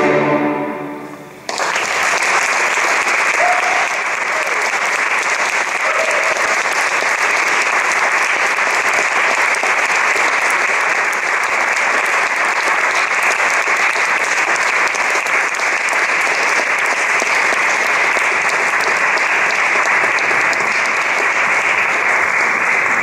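The last chord of a string sextet rings away in the hall. About a second and a half in, an audience starts applauding and keeps up steady clapping.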